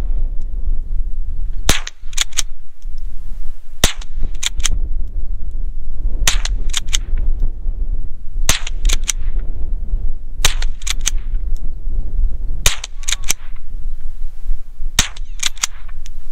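Rossi Gallery .22 LR pump-action rifle firing about seven shots roughly two seconds apart. Each crack is followed by the quick two-part clack of the slide being pumped back and forward to chamber the next round.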